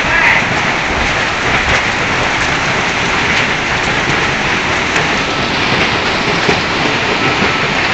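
Heavy water pouring down and splashing onto a flooded concrete floor, a loud, steady rush like torrential rain.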